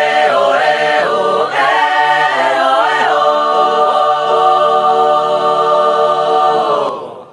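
Background music with choir-like singing: a few moving phrases, then one long held chord that fades out near the end.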